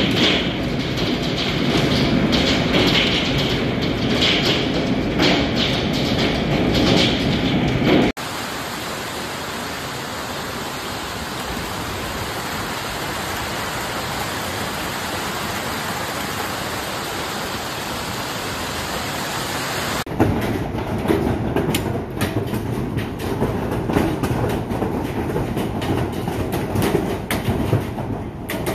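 Heavy hail and rain falling, a dense continuous clatter of hailstones. The sound changes abruptly twice, and in the last third separate sharp knocks of hailstones striking stand out.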